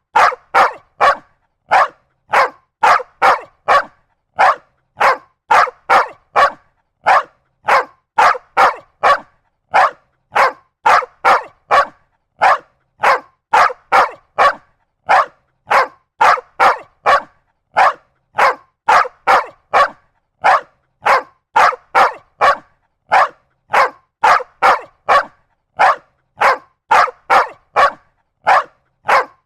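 A large dog barking continuously, single short barks about two a second, sometimes in quick pairs or triplets, with brief silences between.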